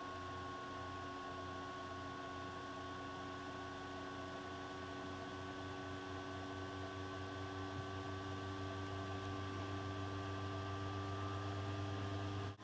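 Steady low electrical hum with a few faint, constant high-pitched whines above it, growing slightly louder toward the end; nothing else is heard.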